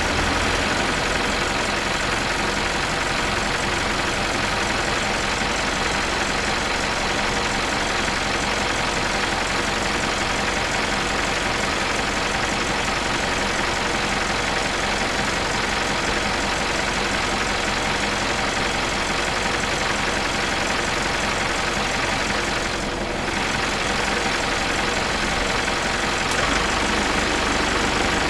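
Old truck's diesel engine idling steadily, with a dense rattling clatter.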